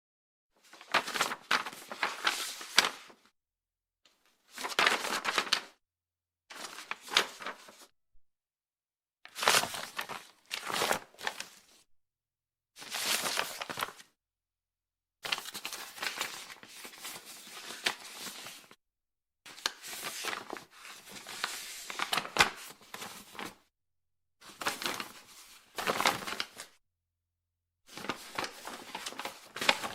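Paper pages being turned one after another: about nine separate page turns, each lasting one to three seconds, with dead silence between them.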